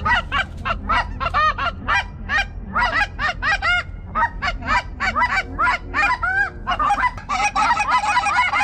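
Geese honking: many rising-and-falling honks in quick succession, thickening into a dense overlapping chorus about seven seconds in, as a flock passes overhead.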